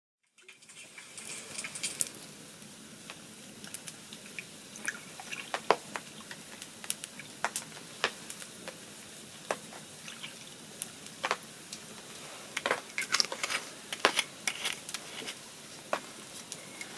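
Wood or charcoal fire crackling: irregular sharp pops and snaps over a steady soft hiss.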